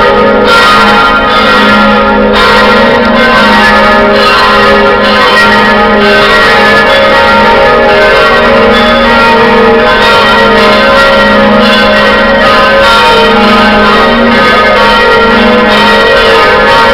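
Loud church bells of the Cathedral of Saint Domnius bell tower pealing without a break, several bells ringing together.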